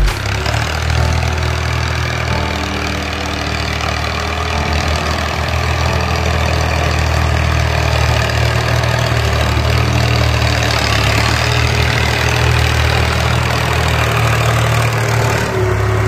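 Farm tractor's diesel engine running steadily as the tractor pulls a disc harrow through ploughed soil.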